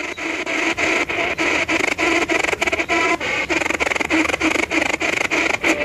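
Ghost-hunting spirit box sweeping through radio stations: a steady static hiss chopped by rapid, even clicks about six or seven times a second.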